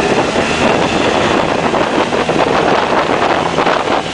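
1986 70 hp two-stroke outboard running under way, with heavy wind noise buffeting the microphone over the engine.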